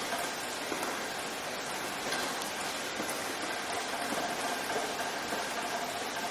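Steady rain falling, an even hiss with no pauses. A faint steady hum runs underneath and grows a little stronger near the end.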